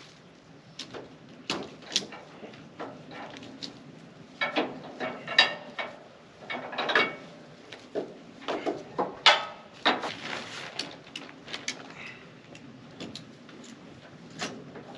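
Metal clanks, knocks and rattles at irregular intervals as a heavy steel wood chipper attachment is handled and shifted on a trailer, a few clanks ringing briefly.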